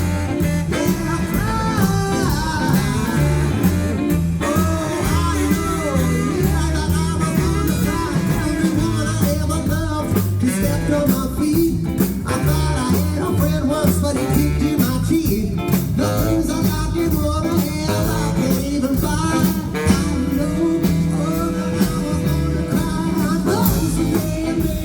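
A live rock and roll band playing, with electric guitar, a walking bass line and drums in a steady beat.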